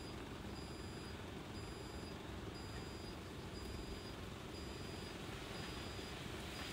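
Steady faint background noise with a soft, high electronic beep repeating about once a second, each about half a second long: a refrigerator's door-open alarm, the fridge door left ajar.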